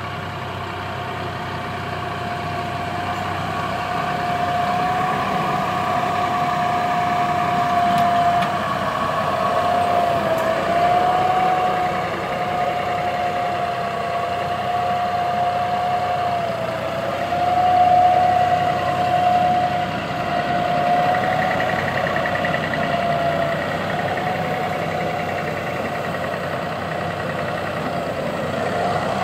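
Massey Ferguson 4708 tractor engine running steadily under load as it pulls a precision seed drill, with a steady high whine over the engine hum. The sound grows a little louder over the first few seconds as the tractor comes closer.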